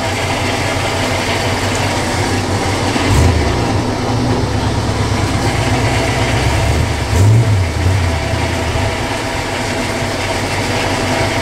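Truck engine idling during a winch recovery of a high-centered Land Cruiser stuck in a water-filled hole, with a deeper rumble from about three to nine seconds in as the stuck truck is pulled backward.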